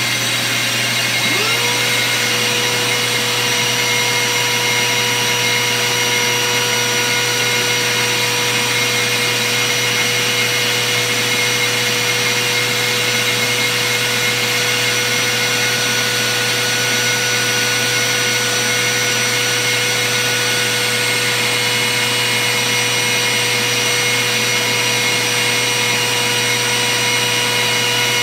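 Router in a router table and the vacuum on its fence dust port running together with a steady whine; one motor is still spinning up at the start and a second one spins up and settles about a second and a half in.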